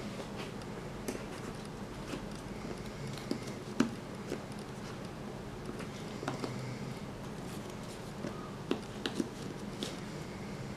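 Scattered small clicks and taps of cardboard jigsaw puzzle pieces being handled and pressed into a frame-tray puzzle, with one sharper tap about four seconds in and a cluster of taps near the end, over steady low room noise.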